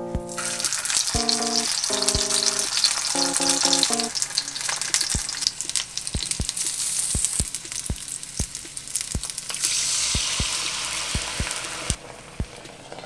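Mandu (Korean dumplings) pan-frying in oil in a nonstick frying pan: a steady sizzle scattered with sharp pops of spitting oil. About ten seconds in, the hiss swells into a louder rush as a milky water is poured into the hot pan for steam-frying, then cuts back sharply near the end.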